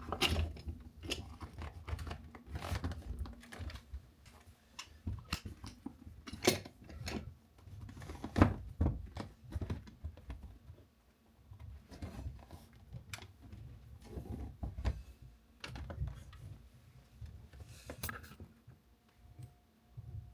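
Irregular handling noise: scattered clicks and knocks with rustling and crinkling between them, the loudest knocks about six and eight seconds in.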